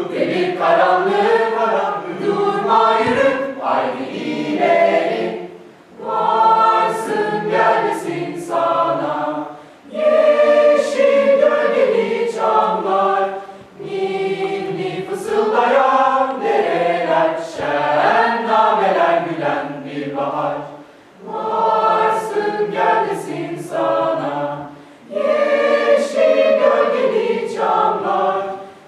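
A polyphonic school choir singing in several voice parts, in phrases of about four seconds with short breaks for breath between them.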